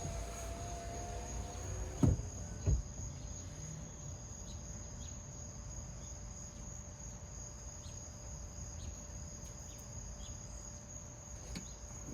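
Crickets chirping steadily throughout. At the start a MINI Cooper S power window motor finishes running and stops, followed by two sharp knocks about two seconds in.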